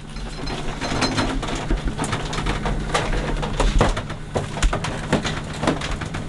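Irregular clicks and light knocks as a dark board under a microwave is handled, over a steady low hum.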